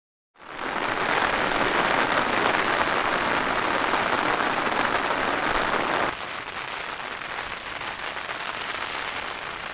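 Heavy rain falling in a steady hiss, which cuts sharply about six seconds in to quieter rain on a tent's fabric, heard from inside the tent.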